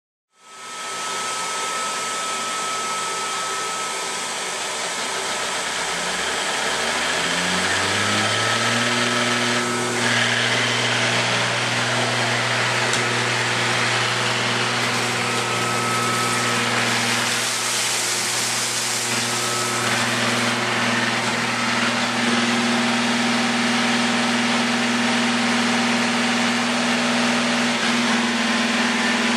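Samsung PowerBot VR9000 robot vacuum running: a steady whir of its suction motor and brushes. A hum rises in pitch about six seconds in, then holds steady.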